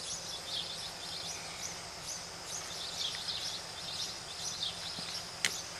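Outdoor morning ambience of birds chirping, many short high calls scattered throughout over a steady background hiss, with a single sharp click near the end.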